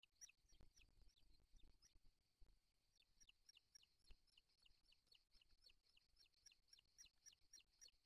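Booted eagle calling at the nest: a fast, faint series of short, high notes, each dropping in pitch, several a second. Faint low bumps come in the first half.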